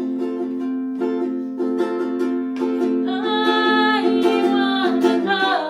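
Ukulele strummed in a steady rhythm, with a voice singing over it from about three seconds in.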